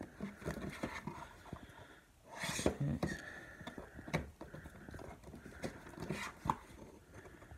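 Plastic DVD cases knocking, clicking and sliding against each other and the shelf as a box set is pushed in among them: a run of irregular taps and clicks, busiest about two and a half seconds in.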